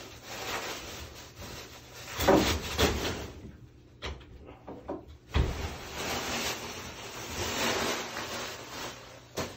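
Rubbing and scraping of protective plastic shrink film being worked off the bottom of a sliding closet door, with the aluminium-framed door panel sliding along its track. The loudest scrape comes a little after two seconds in, and a longer stretch of steady rubbing follows in the second half.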